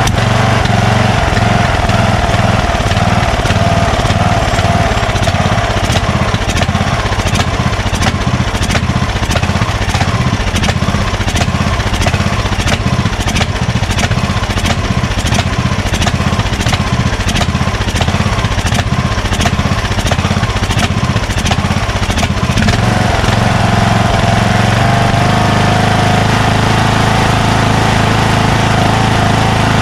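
Craftsman 20 hp lawn tractor engine running with its air cleaner off. From about six seconds in to about twenty-two seconds, while the carburetor is handled, it runs rougher with fast, irregular ticking, then settles back to a smooth, steady run.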